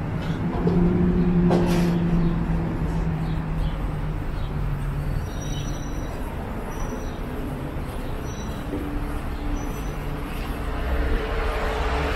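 Steady road-traffic rumble, with a vehicle engine's hum in the first few seconds and a few short high chirps midway.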